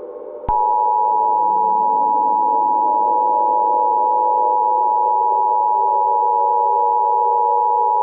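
Emergency Alert System two-tone attention signal (about 853 and 960 Hz sounding together), starting about half a second in and holding steady. It is the warning tone that precedes an emergency alert message.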